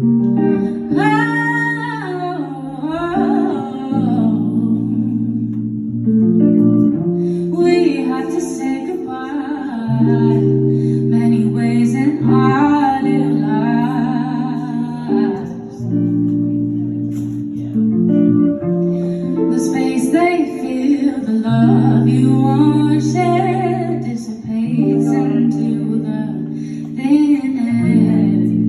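A female singer singing a slow song to guitar accompaniment, the instrument holding long chord notes under phrases of her voice.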